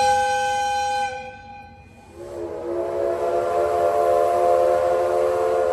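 Locomotive whistles signalling a train's departure: a clear two-note blast that stops about a second in, then, after a short pause, a longer, breathier chord-like blast from the D51 200 steam locomotive's steam whistle.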